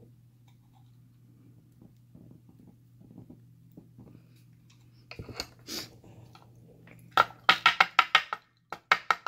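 Small metallic clicks and taps as a Carbine pin-tumbler padlock is taken apart and its pins and springs are worked out. A few soft clicks come about halfway through, then a quick run of about a dozen sharp metal clicks near the end.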